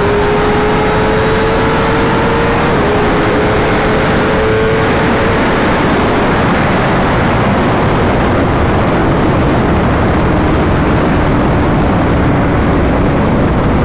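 Heavy wind rush on the rider's camera microphone at highway speed. Under it a Kawasaki Ninja ZX-10R's inline-four engine note climbs slowly in pitch, dips once about three seconds in, then sinks into the wind noise.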